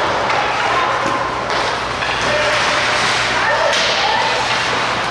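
Ice hockey play on a rink: skates scraping the ice and sharp stick-and-puck hits over a steady wash of noise, with faint voices.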